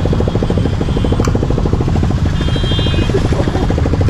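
Motorcycle engine idling with a fast, even pulse while stopped in traffic.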